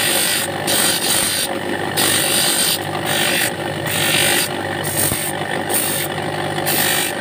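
Monel ring pressed again and again against the spinning abrasive disc of a bench motor, each contact a short rasping grind over the steady hum of the motor, roughly one a second.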